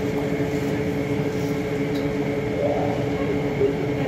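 Steady electrical hum and fan hiss inside a Lille Metro VAL208 car standing still, with constant droning tones and no rolling noise.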